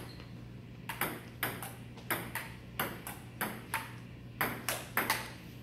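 Table tennis rally: the ball clicking off the paddles and bouncing on a Joola table top, a quick run of sharp clicks about two or three a second, starting about a second in.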